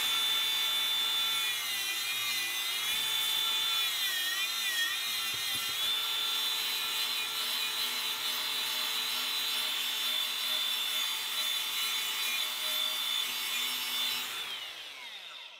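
Cordless DeWalt angle grinder with a paint-stripping wheel running against a rusty steel wheel rim. Its whine wavers and dips as it is pressed on between about two and six seconds in, then winds down near the end.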